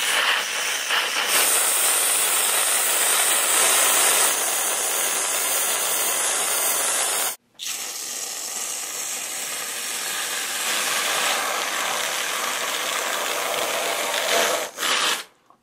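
Aerosol whipped cream can spraying onto pies: two long, loud, sputtering hisses, breaking off briefly about seven seconds in.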